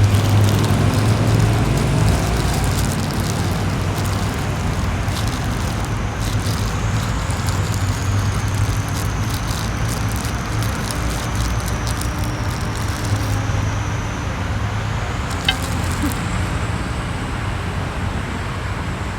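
Steady low rumble of road traffic, with scattered faint ticks and one sharp click about fifteen seconds in.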